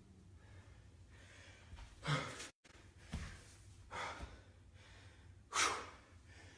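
A man breathing hard and sighing, as if catching his breath: four short, loud exhales over a faint low room hum, the loudest about five and a half seconds in.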